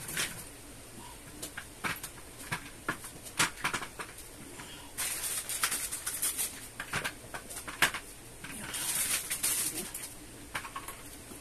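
Plastic casters being pushed and clicked into a gaming chair's five-star base: a scatter of sharp clicks and knocks as the parts are handled, with two longer bursts of rustling in between.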